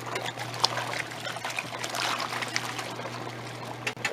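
Giantex Costway twin-tub washing machine's wash tub running: a steady motor hum under water sloshing and churning with the clothes. The hum cuts off suddenly just before the end.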